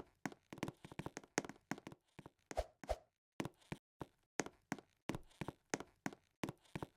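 A quick, irregular run of short taps and knocks, about three or four a second, pausing briefly about three seconds in.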